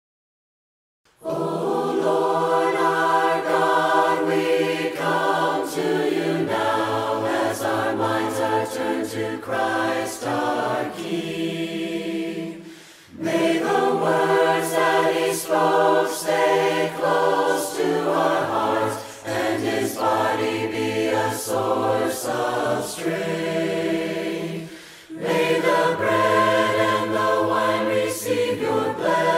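Choir singing a hymn a cappella in four-part harmony, in phrases with brief pauses between them. The singing begins about a second in, after silence.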